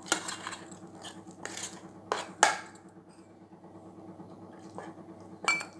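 A steel spoon stirring and scraping thick gram-flour batter in an enamel bowl, with several sharp clinks of metal on the bowl. The loudest clink comes about two and a half seconds in.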